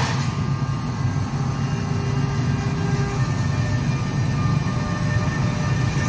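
NJ Transit electric locomotive rolling slowly past close by, with a steady low rumble of its wheels and running gear. A faint whine rises over the rumble about a second in and fades a couple of seconds later.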